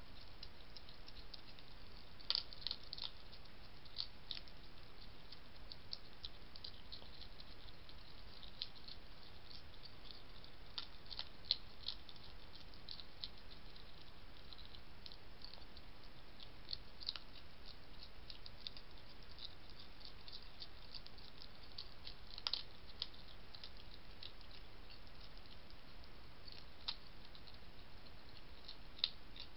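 European hedgehog crunching and chewing dry food from a dish: irregular small crisp clicks and crunches, several a second, with a few louder bites, over a steady hiss.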